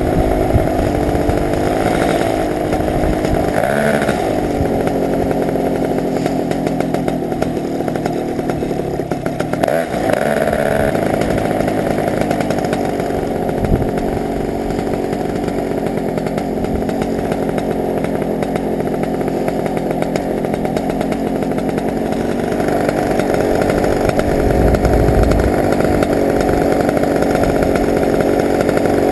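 Paramotor's two-stroke engine running steadily under power, with its pitch dipping and coming back up twice in the first ten seconds as the throttle is eased. Low wind rumble on the microphone runs beneath it.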